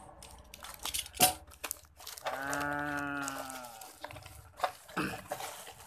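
Plastic parcel wrapping being torn and crinkled by hand: short ripping and rustling sounds near the start and again near the end. In the middle comes one drawn-out voiced note, about a second and a half long, that rises slightly and falls back.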